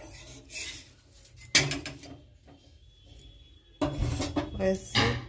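Steel roti tongs and a roti being handled on a tawa: metal knocking and scraping on the griddle, with one sharp clank about one and a half seconds in, then a louder stretch of rubbing and scraping near the end.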